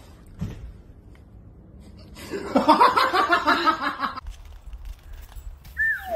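A person laughing hard in quick repeated pulses for about two seconds, after a soft thump about half a second in. Just before the end a high squeal begins, falling in pitch.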